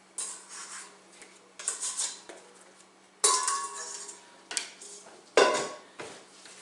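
Metal kitchenware clattering and knocking in a handful of separate handling noises, the loudest about three seconds in with a brief metallic ring.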